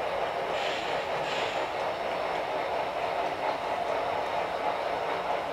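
HO scale model train running on the layout's track, a steady rolling hum, with a brief higher hiss about a second in.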